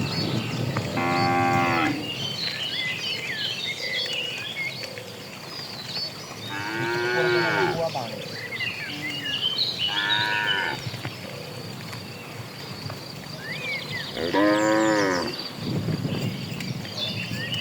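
Cattle mooing four times, a long drawn call every three to four seconds, with small birds twittering throughout.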